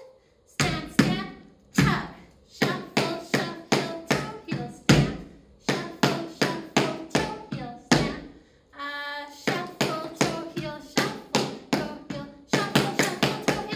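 Tap shoes striking the floor in an even run of sharp taps, about two to three a second, with a brief break around eight seconds and a short held tone about nine seconds in.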